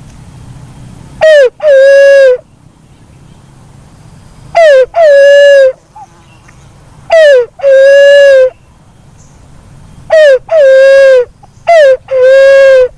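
Black-naped fruit dove (walik kembang) calling: five two-part hoots, each a short falling note followed by a longer, steady, level note, repeated about every two and a half seconds starting about a second in. The calls are very loud.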